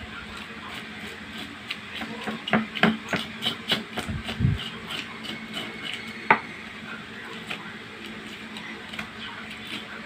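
Knife scraping the large scales off a parrotfish on a wooden cutting board: a quick run of scraping clicks for a few seconds, then one sharp knock about six seconds in and a few sparser scrapes, over a steady low hum.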